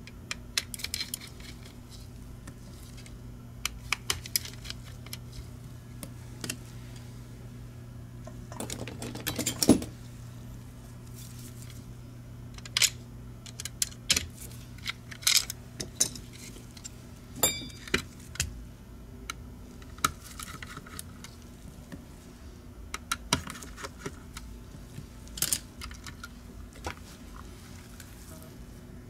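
Small hard plastic and metal parts of a Logitech G Pro Wireless mouse clicking and tapping as it is taken apart with tweezers and a screwdriver, tiny screws and plastic pieces set down on a rubber mat, in scattered taps over a low steady hum. A short scrape about ten seconds in is the loudest sound.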